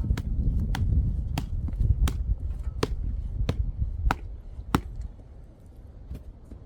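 A run of eight sharp, evenly spaced strikes on wood, about one and a half a second, over the low rumble of a running engine that drops away about five seconds in.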